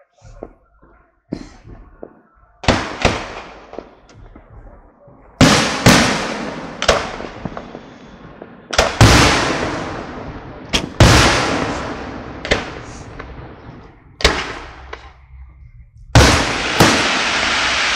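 Fireworks display: about a dozen aerial shells burst one after another, each sharp bang followed by a long fading rumble. In the last two seconds the sound becomes a continuous dense rush.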